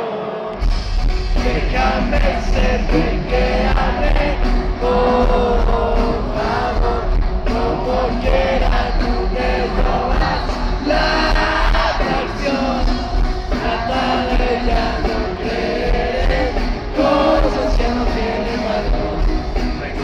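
Live rock band playing, with electric guitar, bass, drums and a sung lead vocal, heard from among the audience; the full band with its heavy bass comes in about half a second in.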